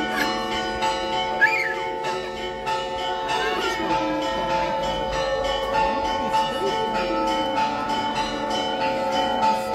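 Church bells ringing in a rapid peal, several strikes a second over a steady wash of lingering tones, with faint voices underneath.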